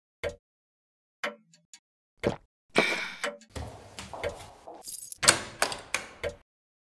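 A short hollow plop repeating about once a second, then a bunch of keys jangling as a key is put into a door lock and turned, with a louder clink a little after five seconds.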